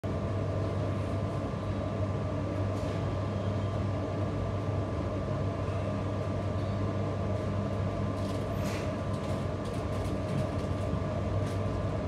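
Steady hum of a JR Hokkaido 721 series electric train's onboard equipment, heard from inside the car while it stands at a station, with a few faint clicks about eight and a half seconds in.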